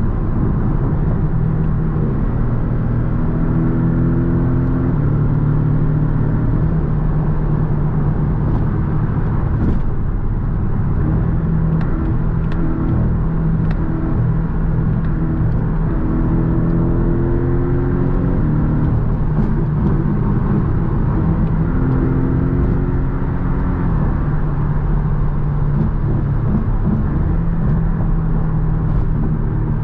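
Porsche 718 Boxster's turbocharged flat-four engine cruising at freeway speed, a steady drone over tyre and wind noise, with the engine note rising briefly a few times.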